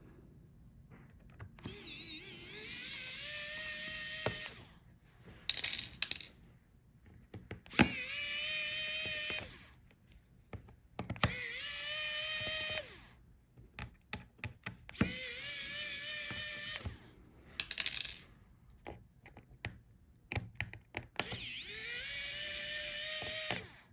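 Small electric screwdriver backing out laptop motherboard screws in five runs. Each time its motor whine rises and then holds steady for two to three seconds. Between runs come sharp clicks and clatter as the screws and the tool are handled.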